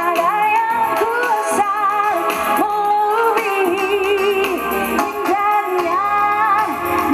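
A woman singing a song live with musical backing, holding long notes with vibrato.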